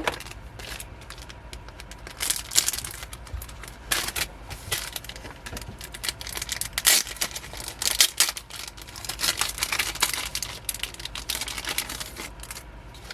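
Crinkling and rustling of a clear plastic bag and album packaging being handled, a run of irregular crackles and light taps with louder bursts now and then.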